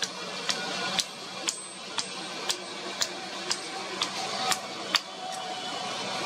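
Hammer blows on hot iron against an anvil, struck at an even pace of about two a second, as a horseshoe is forged by hand.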